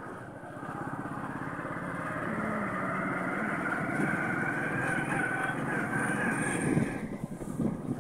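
Small motorcycle engine running steadily under way, easing off briefly near the end.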